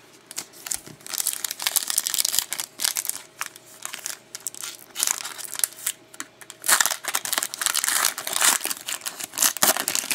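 Foil wrapper of a hockey trading card pack crinkling and tearing as it is handled and ripped open by hand, in dense crackling bursts that get louder from about seven seconds in.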